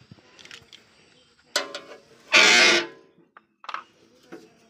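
Keys and small metal parts clicking and clinking as they are handled at a tractor's metal battery box, with one loud half-second squeal about two and a half seconds in.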